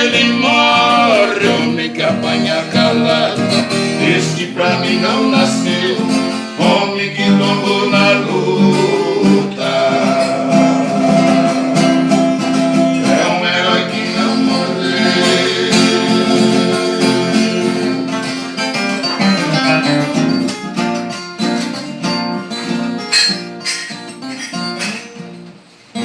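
Music: the instrumental close of a moda de viola song, with a plucked viola caipira and acoustic guitar playing together, tapering off over the last few seconds.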